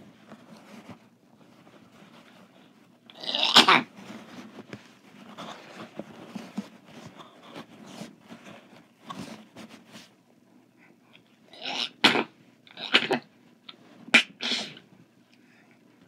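A person sneezing once loudly about three and a half seconds in, followed near the end by four shorter, sharp breathy bursts.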